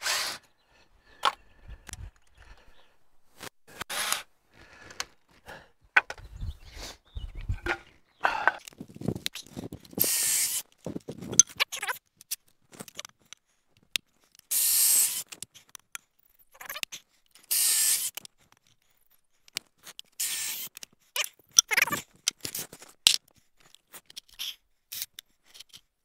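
Cordless drill boring pocket holes through a Kreg pocket-hole jig into a wooden frame board, in several bursts of about a second each, with short knocks and clicks of handling wood and tools between them.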